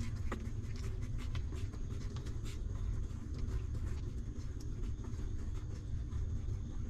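Newborn puppies suckling and shuffling at their mother's belly: soft scattered clicks and scratchy rustling over a steady low rumble, with one brief squeak just after the start.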